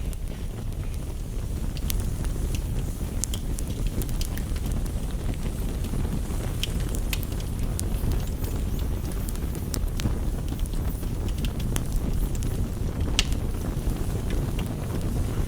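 Campfire crackling, with sharp irregular pops and snaps over a steady low rush of rain on a window.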